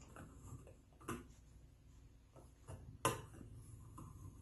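A few light clicks and knocks from a stainless-steel funnel handled on the mouth of a glass mason jar. The sharpest click comes about three seconds in.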